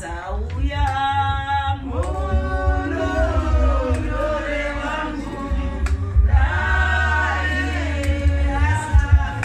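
A choir singing with long held, gliding notes, over a steady low rumble.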